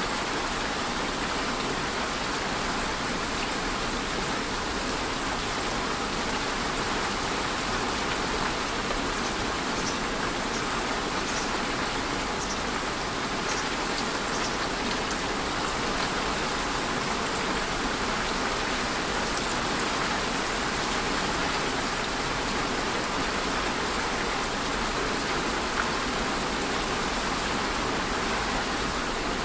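Steady rain falling on a surface, a continuous even hiss with faint scattered drop ticks.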